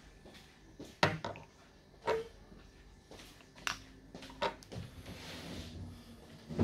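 A small glass bottle, its screw cap and a glass test tube handled on a tiled bench: several sharp knocks and clinks about a second apart, with a brief rubbing hiss near the end.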